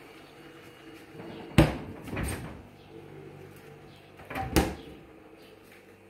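Small refrigerator door being shut with a sharp knock, followed about three seconds later by a second, slightly quieter knock.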